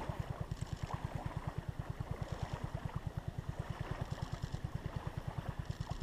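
A distant engine running with an even low pulse of about ten beats a second.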